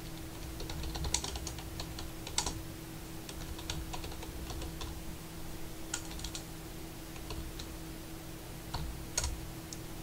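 Typing on a computer keyboard: several short runs of keystroke clicks with pauses between them. A faint steady low hum runs underneath.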